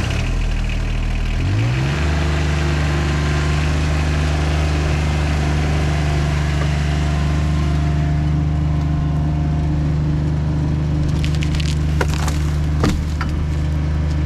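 John Deere 2320 compact tractor's three-cylinder diesel engine running, stepping up in pitch about a second and a half in as it is throttled up, then holding steady. Near the end, wood cracks and a thud as a large pine trunk piece is dropped.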